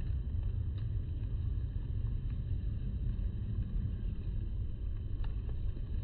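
Steady low outdoor rumble picked up by a smartphone microphone, with a few faint ticks.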